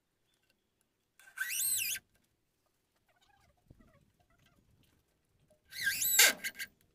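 Cordless drill run in two short bursts into a hardwood bed board, its whine wavering up and down in pitch. The second burst is louder and winds down sharply as the trigger is let go.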